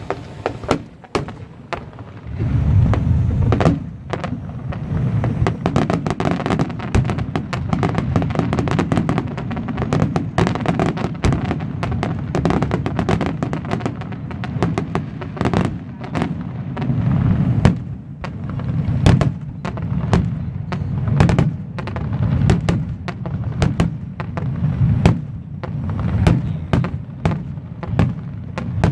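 Fireworks going off in rapid succession: dense cracks and bangs throughout, over a continuous low rumble.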